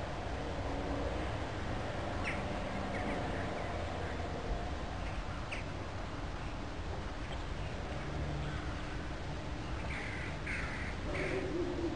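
Birds calling in a few short, harsh calls, spaced out at first and then a quick run of three near the end, over a steady low background rumble.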